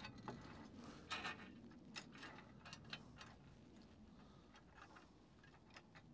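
Faint, irregular clicks and taps of metal bolts and a mounting bracket being handled and fitted into an awning's mounting track.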